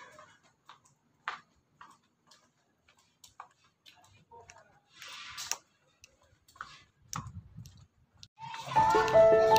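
Sparse faint clicks and taps with a short hiss about five seconds in; background music with held notes starts near the end.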